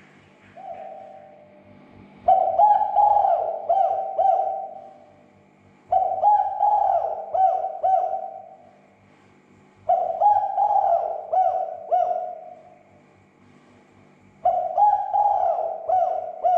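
Spotted dove (tekukur) cooing: four repeated phrases of several coo notes each, one about every four seconds, with a short single coo just before the first.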